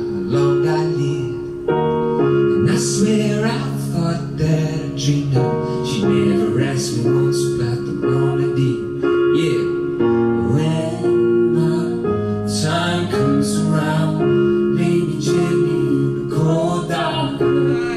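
A man singing while playing piano chords on a Roland RD-300NX digital stage piano, the notes held and ringing under the voice.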